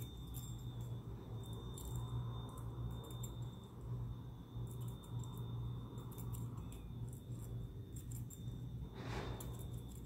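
Small scattered metallic clicks and scrapes of a lock pick tool working the pins of a six-pin Yale cylinder lock, over a steady low hum.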